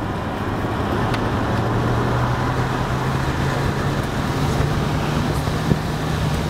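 Tesla Model S (Beta prototype) heard from inside the cabin while driving on the highway: steady road and tyre noise, with a low hum that rises slowly in pitch as the car gains speed.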